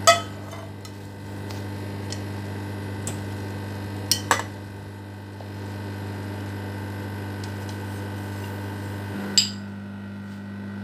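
Ceramic plate clinking against a glass saucepan as cooked glass noodles are drained: a sharp clink at the start, two in quick succession about four seconds in, and one more near the end, over a steady low hum.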